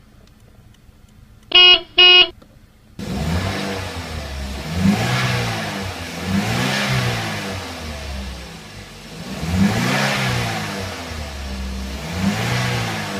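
A car horn beeps twice, short and close together. About three seconds in, a car engine starts revving up and down over and over, its pitch rising and falling in repeated swells.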